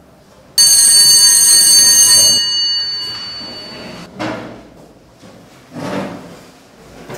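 School bell ringing, a sudden loud ring of several steady tones held for under two seconds and then dying away, the signal that the lesson is over. A couple of shorter, quieter noises follow.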